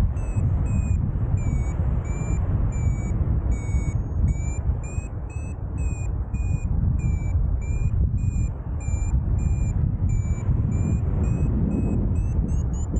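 Paragliding variometer beeping in short, evenly spaced tones, about two a second: its climb signal, showing the glider is in rising air. The beep pitch dips a little after the first second and climbs again near the end. Heavy wind rush on the microphone runs underneath and is the loudest sound.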